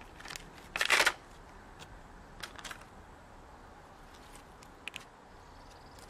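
Plastic blister packaging of a tire plug kit being handled and opened: a short crinkling rustle about a second in, then a few light clicks of plastic and tool handling.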